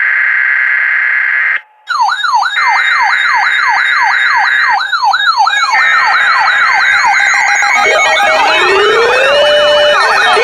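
Emergency alert signal: a harsh digital SAME data burst, then several electronic sirens wailing up and down quickly, about two sweeps a second, over further data bursts. Slower rising siren glides join in near the end.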